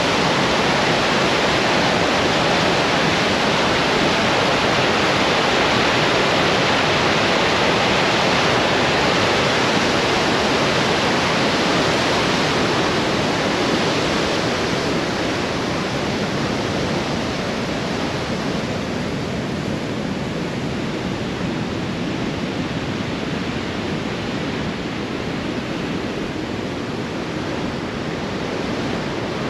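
Great Falls of the Androscoggin River rushing: a steady, loud wash of falling white water that eases somewhat after about fifteen seconds.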